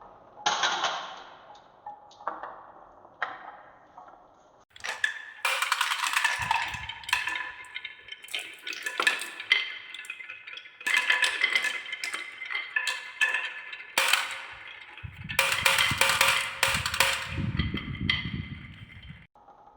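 Marbles rolling and clattering down a wooden marble run track. There are scattered clicks at first, then dense clacking from about five seconds in, with a low rolling rumble near the end.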